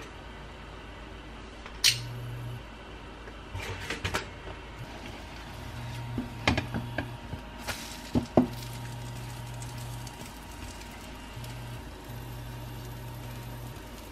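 Kitchen handling sounds: a sharp click about two seconds in, then knocks and taps of a wooden spatula against a nonstick frying pan. Under them runs a low hum that switches on and off every second or two.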